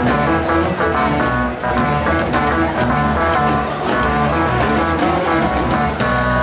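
Live jazz and hip hop fusion band playing an instrumental passage: drum kit keeping a steady beat under keyboard, saxophone and electric guitar.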